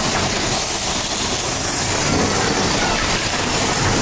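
Big Thunder Mountain Railroad mine-train roller coaster running along its track, heard from a rider's seat: a steady, loud rumble and rush of the train on the rails.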